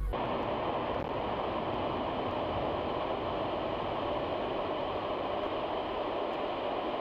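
Steady road noise of a moving vehicle: an even rush with no distinct knocks, tones or voices.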